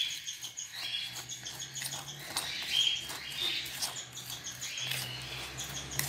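A metal utensil stirring and scraping a crumbly mix of egg-food powder, chopped boiled egg and corn kernels in a bowl, making a run of short scratchy ticks. Small birds chirp in the background.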